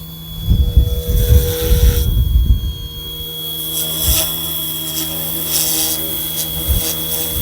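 Small brushless electric RC helicopter (Eachine E187S) in flight, its motor and rotors giving a steady whine, with low gusty rumbles of wind on the microphone in the first couple of seconds.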